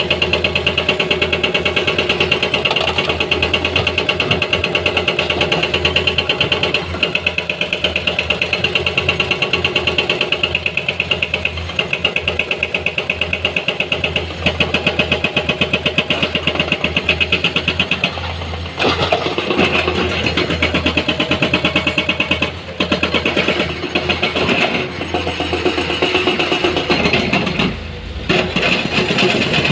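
Heavy diesel machinery running steadily, with a fast, even engine pulse and a few brief shifts in tone near the end.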